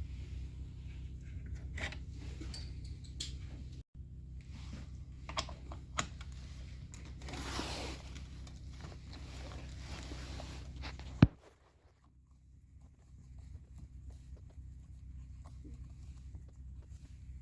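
Scattered small clicks and rustles of chainsaw carburettor parts and tools being handled, over a steady low hum. A sharp click comes about eleven seconds in, after which the hum drops away.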